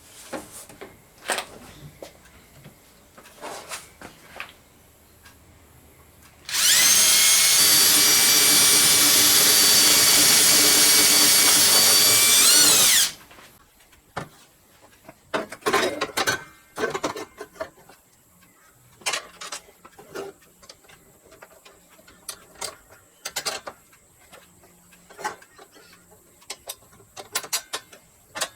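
Electric drill running steadily for about six seconds, its pitch dropping as it winds down and stops. Scattered clicks and knocks of handling tools and parts come before and after it.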